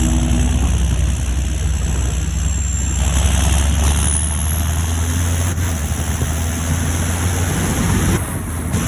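John Deere 7530 Premium tractor's six-cylinder turbodiesel running steadily under way, with a thin high turbo whistle that rises in pitch about four seconds in. The low engine drone eases off near the end.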